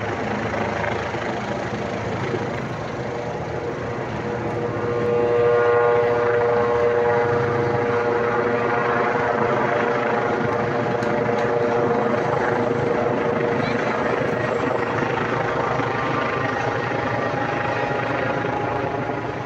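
Police helicopter flying, a steady rotor and engine drone with a whine of several steady tones that comes in and grows louder about five seconds in.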